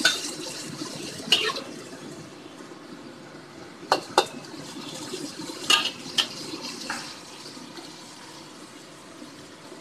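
Ampalaya, egg and tomato stir-frying in a wok: a steady sizzle under sharp clicks and scrapes of the spatula against the pan. There are about seven of them, at irregular moments over the first seven seconds, and then only the sizzle.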